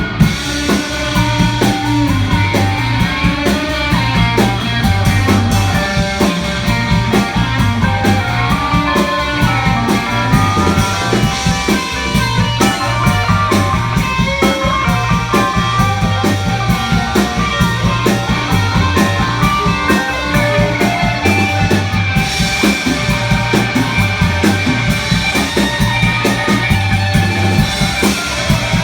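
Rock band playing live: guitar lines over a steady drum kit beat and a low repeating bass part, in an instrumental stretch of the song.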